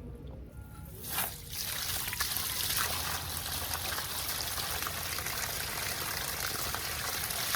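Water pouring steadily out of the open, cut end of a broken water supply main, starting about a second in.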